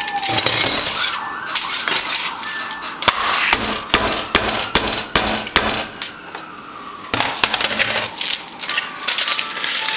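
Kitchenware clinking and knocking: a run of sharp taps and clacks of utensils against a pan and dishes while fried plantain slices are handled and flattened for tostones.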